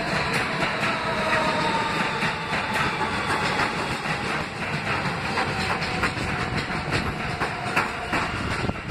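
New York City subway train rolling slowly along the platform, its wheels clicking over rail joints over a steady rumble, with a faint motor whine falling in pitch as it slows.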